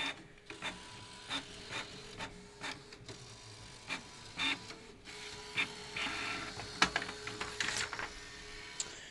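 Canon MP280 inkjet printer running: a string of mechanical clicks and clacks, with a steady hum setting in about halfway through and busier clattering near the end.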